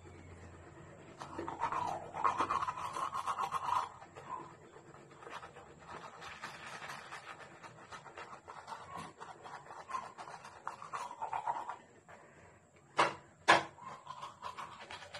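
Manual toothbrush scrubbing teeth in a foamy mouth: a rapid back-and-forth rasp of bristles in two long stretches. Two sharp, loud noises about half a second apart near the end.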